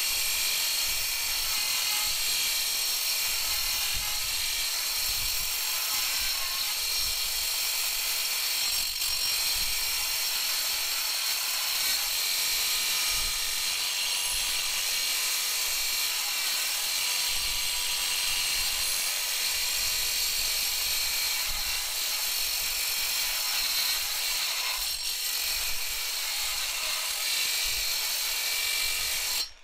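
Angle grinder running steadily, its abrasive disc grinding into a steel crowbar: a high whine over a rasping hiss.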